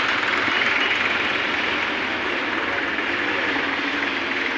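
Steady rush of road traffic noise, easing slightly as it goes.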